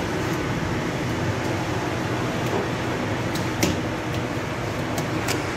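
Steady rushing noise with a low hum underneath, broken by a few sharp clicks, one a little past the middle and two near the end.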